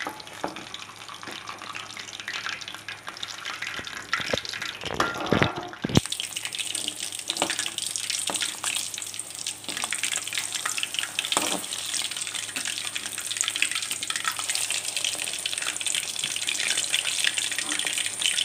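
Battered chicken drumstick deep-frying in hot oil in an aluminium kadai: a steady sizzle and crackle of bubbling oil. A few sharp metal knocks of the perforated steel skimmer against the pan come about four to six seconds in, and after that the sizzle sounds brighter.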